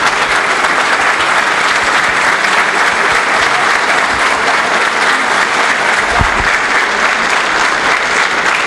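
Steady applause from an audience.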